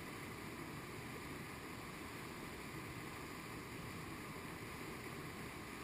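Whitewater rapid rushing steadily as the creek pours over a rocky ledge drop, at a low flow of about 500 cfs.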